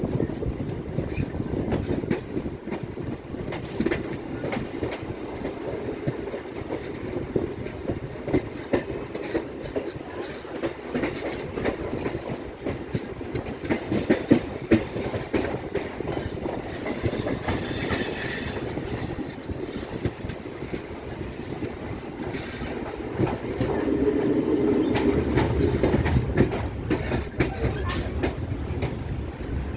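A vehicle in motion: a steady low rolling rumble with rapid, irregular clicks and clatter throughout, swelling louder for a few seconds about three-quarters of the way through.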